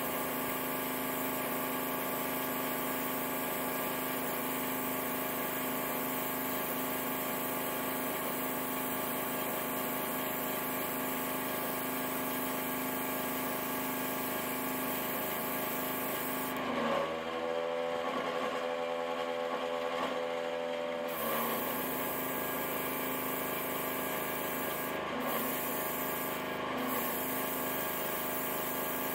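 A small nail-salon-kit airbrush compressor running steadily, with the hiss of air and thinned acrylic paint spraying from the airbrush. The hiss stops for about four seconds partway through and twice briefly near the end as the trigger is let off, while the compressor keeps humming.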